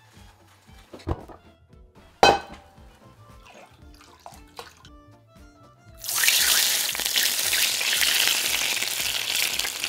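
Hot oil sizzling loudly on fish scales, setting in suddenly about six seconds in and carrying on steadily. Before it, soft background music with a couple of knocks.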